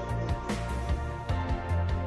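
Background music with sustained tones and a regular beat.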